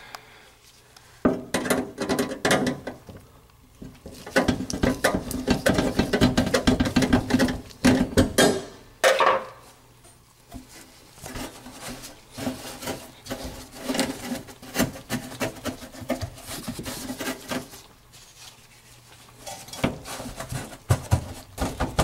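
Sheet-metal air-handler panels and trim being handled and fitted back on: rapid clattering, knocking and scraping of metal on metal in two long bouts, with a quieter pause between.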